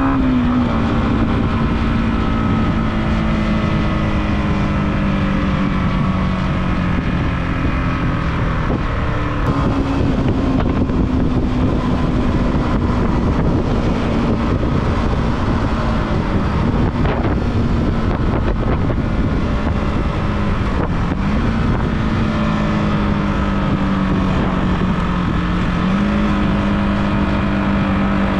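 Yamaha motorcycle engine running while riding at a fairly steady speed; its note holds level and steps up in pitch a few times, with wind rushing over the microphone.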